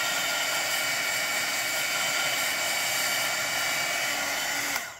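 Heat gun running, a steady rush of air with a whine on top, switched off just before the end.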